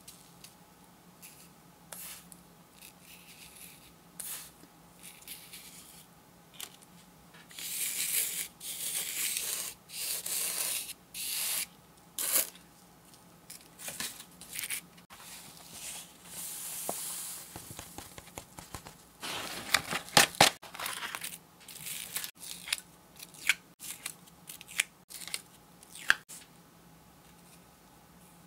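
Dry coloured craft sand poured from a plastic tub and spread over a sticky sand-art sheet with a plastic spoon, hissing and rustling in irregular bursts. A cluster of sharp taps about two-thirds of the way through is the loudest part.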